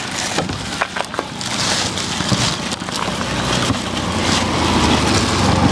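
Thin plastic bags crinkling and rustling as bottles are packed into them, with a few light clicks of handling. A motorbike engine grows louder over the last couple of seconds.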